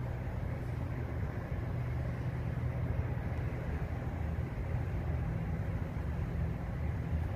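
Steady low rumble of city traffic, even in level with no single vehicle standing out.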